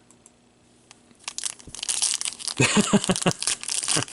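Card pack wrapper crinkling and tearing as a pack is opened and handled, starting about a second in and growing louder.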